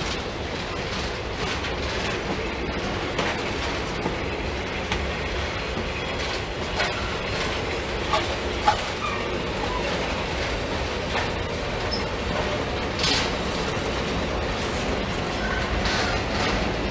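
Norfolk Southern track-repair work train's flatcars rolling past: a steady rumble of steel wheels on rail with scattered clicks and clanks, one louder clank about halfway through.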